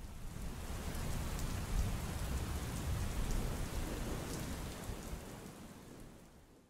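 Steady rain falling, with a deep low rumble underneath that swells in the middle and then dies away with the rain, fading out near the end.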